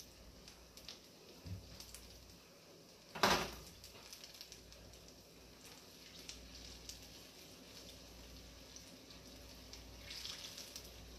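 Plantain puff puff dough balls deep-frying in a saucepan of oil, a faint crackling sizzle, which grows louder for a moment near the end as the balls are turned in the oil with a wooden skewer. A single sharp knock about three seconds in.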